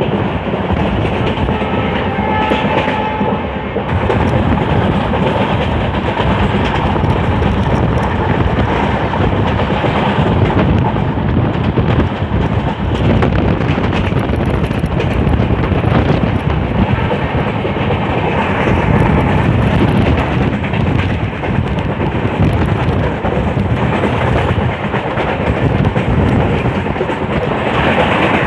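Passenger train running along the track, heard from an open coach doorway: a steady rumble of wheels on rail with repeated clicks as the wheels cross rail joints.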